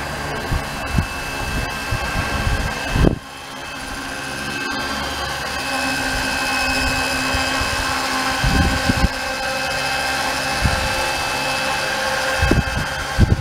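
Large model helicopter with a diamond rotor head hovering low: a steady mechanical whine from its drive with the whir of the main rotor. Several low gusty thumps are heard, and the level dips briefly about three seconds in before building again.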